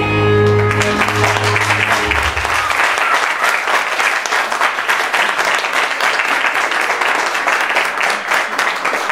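A recorded song ends in the first couple of seconds, and a congregation applauds with dense, steady clapping that carries on to the end.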